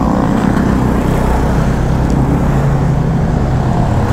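Motorcycle engine running as the bike pulls away and rides along the road, a steady low drone under road noise.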